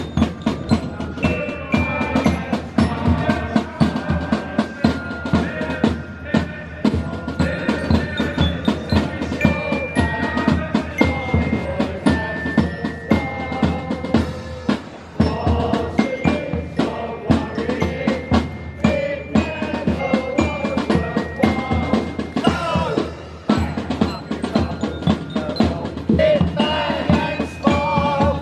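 Live music: a band playing a melody over a steady drum beat, with bass drum strokes.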